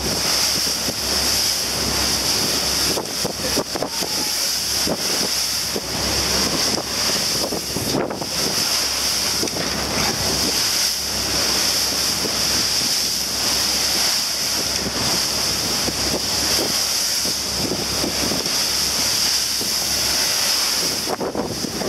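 Wind buffeting the microphone over the rush of water and waves from a boat running fast on open sea, with a steady low drone underneath.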